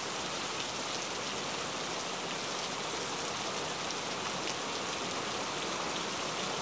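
Steady hiss like falling rain, even in level, with faint scattered ticks.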